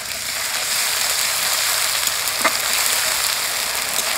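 Ginger and garlic paste frying in hot oil with onions and green chillies in an aluminium kadai, sizzling steadily. One light click comes about halfway through.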